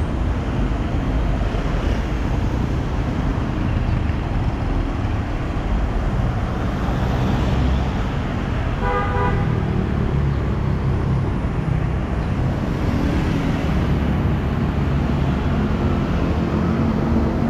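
Road traffic passing close by: a steady mix of vehicle engines and tyres, with one short vehicle horn toot about halfway through.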